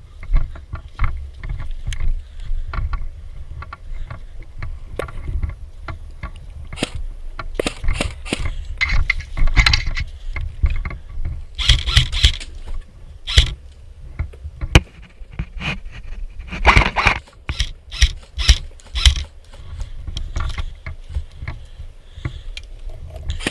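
Rustling and scraping movement noise over a steady low rumble, with many sharp clicks and knocks, thickest in short clusters near the middle and later on.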